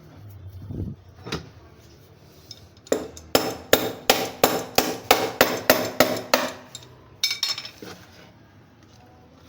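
Hammer blows: a couple of single knocks, then a fast, even run of about a dozen sharp ringing strikes at roughly three a second, and two more strikes shortly after.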